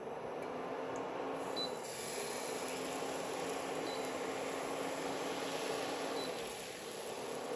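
Portable induction cooktop running with a steady fan noise and a low hum that cuts in and out. Thin pancake batter hisses faintly on the hot pan from about two seconds in, as it is poured and swirled.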